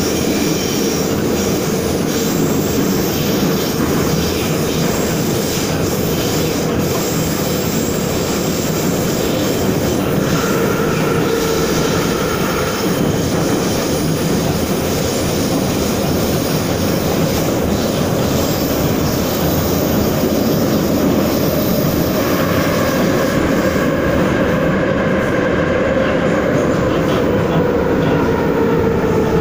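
Ezh3 metro car running through a tunnel, heard from inside the car: loud, steady rumble and wheel noise with a steady whine. A fainter, higher whine comes in twice, and near the end the main whine starts to sink in pitch.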